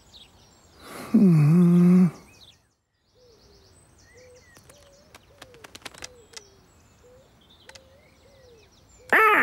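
A man's short wordless voice sound about a second in, then garden ambience with small birds chirping and a run of light clicks. Near the end, a bird gives one loud squawk.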